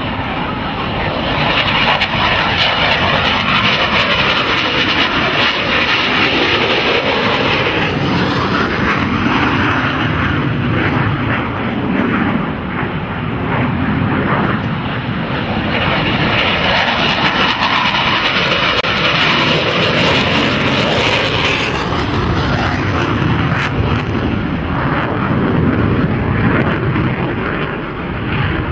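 F/A-18 Hornet fighter's twin jet engines in low passes, a loud continuous jet roar with a hissing whine on top. It swells about two seconds in and again around sixteen seconds in, easing a little between.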